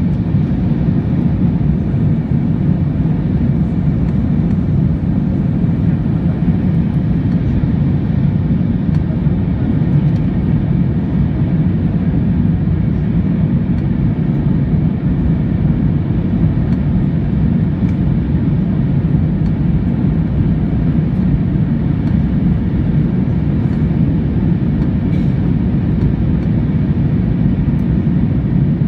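Airbus A321 engines and airflow heard inside the passenger cabin during the climb after takeoff: a steady, deep, even noise that neither rises nor falls.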